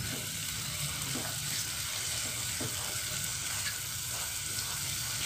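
Shredded cabbage, carrot, bean sprouts and spring onion sizzling steadily in a frying pan as the vegetable filling cooks.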